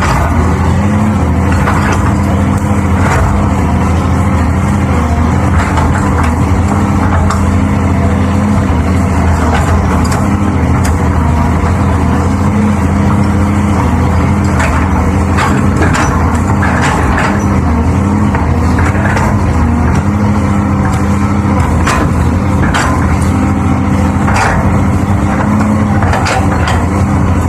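Heavy diesel engine running steadily under load, its pitch wavering a little, with occasional short knocks and clanks.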